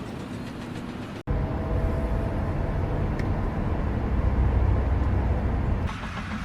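Steady mechanical noise that cuts off abruptly about a second in, followed by a louder, steady low machine rumble that breaks off shortly before the end.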